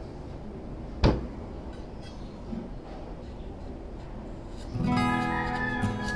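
A single sharp knock about a second in, a knife chopping through the end of a bottle gourd onto a plastic cutting board. Acoustic guitar background music starts near the end.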